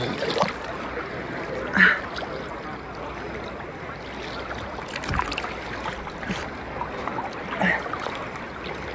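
Choppy sea water lapping and sloshing around a camera held at the surface, with a few short louder moments about two seconds in, about five seconds in and near the end.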